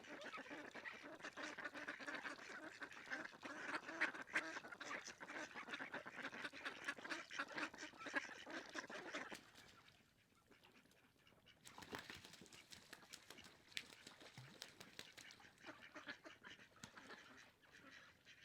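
A flock of ducks quacking and chattering over one another: dense for about nine seconds, then fewer and quieter calls.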